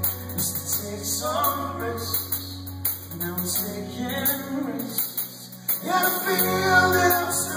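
Live pop-rock band playing: electric and acoustic guitars, bass guitar and a drum kit with a steady cymbal beat. The low bass line drops out briefly past the middle and comes back.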